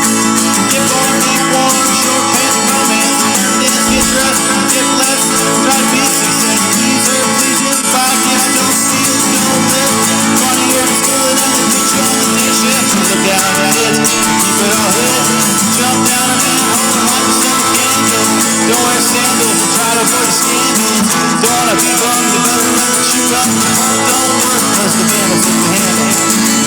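Background music with guitar playing steadily throughout.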